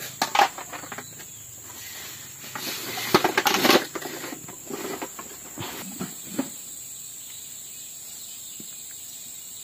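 Steady, high-pitched insect chorus in forest, with irregular rustling and knocking handling noises, loudest about three to four seconds in.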